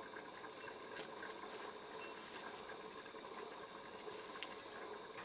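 Night insects trilling steadily at one high pitch, with a few faint clicks.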